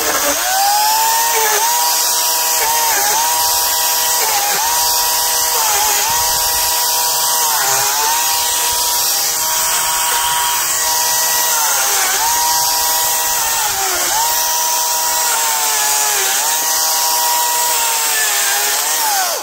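Parkside PKSA 40-Li A1 twin-battery cordless chainsaw running continuously and cutting thin branches. Its electric motor and chain give a steady high whine that dips in pitch about every second or two as the chain bites into the wood, then winds down near the end. It is running at a reduced chain speed on batteries that are nearly flat.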